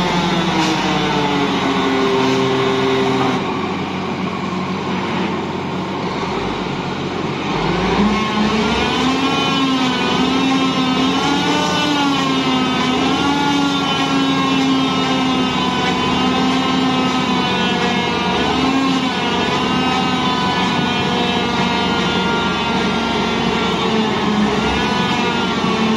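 Diesel engine of a CAT Kress slag pot carrier running. It eases off about three seconds in, then revs up about eight seconds in and holds a higher, wavering speed while the hydraulic pot-lifting arms are worked up and down.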